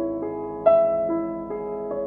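Background piano music, slow single notes struck about every half second, the loudest about two thirds of a second in.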